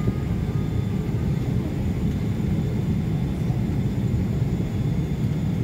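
Steady rumble of cabin noise inside an Emirates Boeing 777 airliner around landing.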